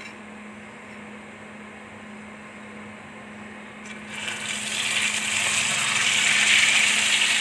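A slice of egg-dipped bread is lowered into hot oil about four seconds in, and a loud sizzle of deep-frying builds quickly and holds. Before that there is only a low steady hum.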